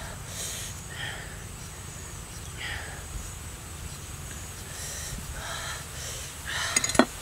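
A large knife cutting and peeling the skin off a firm red fruit in short scraping strokes, with a louder scrape ending in a sharp click near the end.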